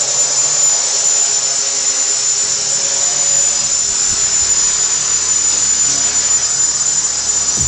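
GAUI 330XS quadcopter's electric motors and propellers running steadily with a high whine and hiss as it hovers low.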